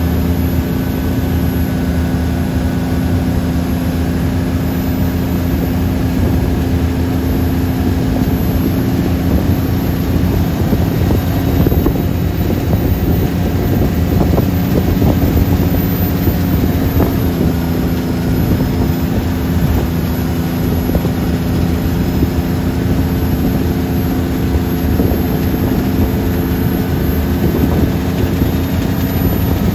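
Tow boat's engine running steadily at constant speed, with the rush of water from the wake behind it.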